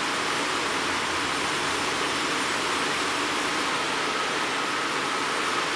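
Steady rushing noise of churning sea water in a cruise ship's wake.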